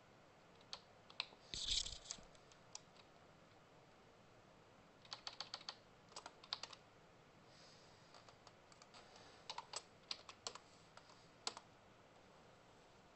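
Computer keyboard typing in short bursts of keystrokes, with a louder clack or thump about one and a half seconds in.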